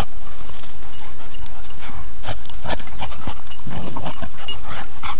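A dog panting, with many short sharp clicks and scuffles and a few brief high squeaky sounds.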